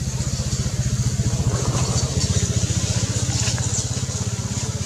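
An engine idling with a steady, rapid low throb.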